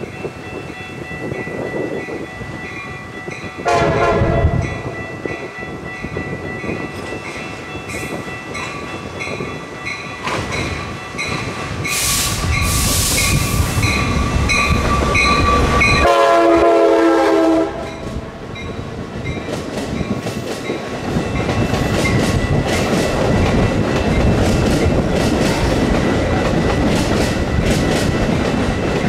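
A train sounds its horn twice, a short blast about four seconds in and a longer one around sixteen seconds, while a bell rings steadily. The bell stops with the second blast, and the train's wheels then rumble and clack over the rails as it passes.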